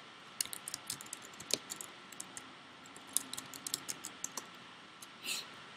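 Computer keyboard keys being typed in two quick irregular runs of clicks, a short username and then a password, with a brief pause between them.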